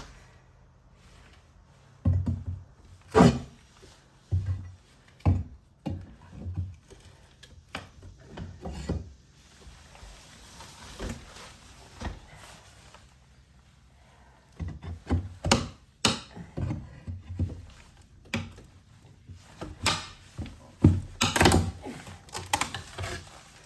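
Irregular wooden knocks and thuds as tongue-and-groove ceiling boards are pried and knocked loose, with a quieter pause midway.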